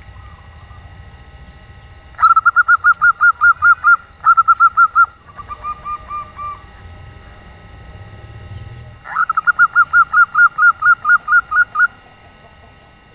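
Female zebra dove (perkutut) calling: runs of quick, evenly spaced cooing notes, about six a second, in four bursts, the third softer and lower and the last the longest.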